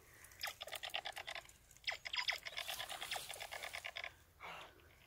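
Lazer X toy laser-tag gun firing: rapid electronic pulsing, about ten pulses a second, in two spells of about one and two seconds, with falling "pew" sweeps at the start of the second spell.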